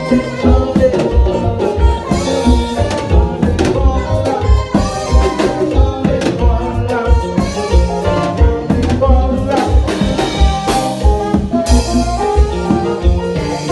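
Live band playing a dance tune on drum kit and bass guitar, with a steady beat carried by the kick drum and bass.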